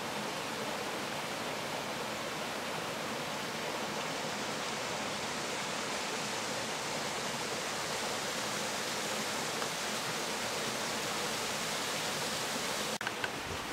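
Steady rushing of water from a large garden waterfall, with a brief dropout and a few small clicks near the end.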